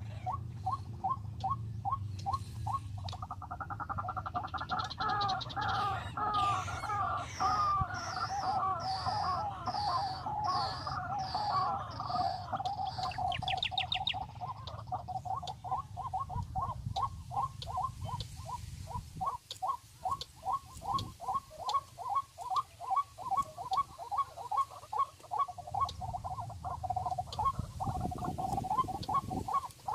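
Birds calling outdoors. A steady series of short repeated notes, about three a second, runs throughout. In the middle come a warbling call, a run of high falling whistles, and a quick high trill.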